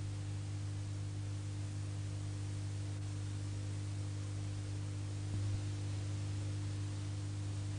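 A steady low hum of a few fixed tones over faint hiss, unchanging apart from a slight swell about five seconds in.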